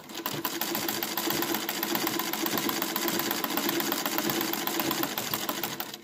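Singer 15 treadle sewing machine stitching at a steady speed, driven by the foot treadle through its leather belt, with a rapid, even clatter of the needle mechanism.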